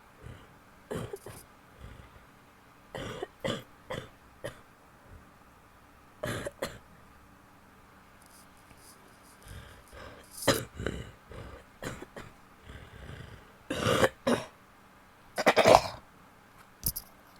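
A woman coughing in repeated fits, mixed with throat clearing, the strongest coughs coming near the end.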